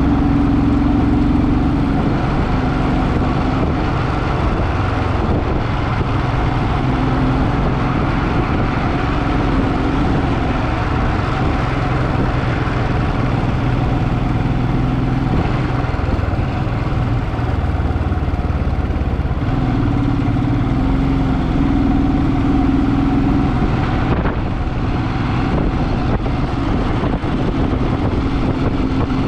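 Motorcycle engine running continuously while riding along the road, its note shifting slightly up and down, with steady road and wind noise underneath.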